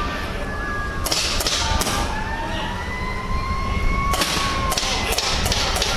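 A series of sharp pops or snaps, three about a second in and five or six more from about four seconds to the end, over a steady low rumble, with a faint tone slowly rising in pitch.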